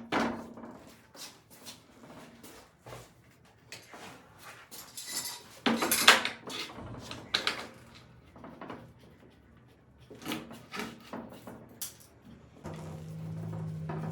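Irregular knocks and clatter of wood and tools being handled and set down on a work surface, loudest just at the start and about six seconds in. Background music comes in near the end.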